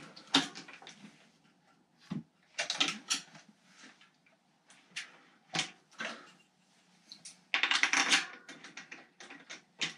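Irregular metallic clicks, taps and rattles of a mountain bike's front wheel being fitted into its suspension fork: the hub's torque caps and axle knocking against the fork dropouts. There is a denser bout of rattling about seven and a half seconds in.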